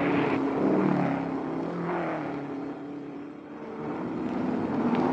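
Racing cars' engines running at speed past the track side, a pitch drop around the middle as one goes by and fades, then the sound builds again near the end as more cars approach.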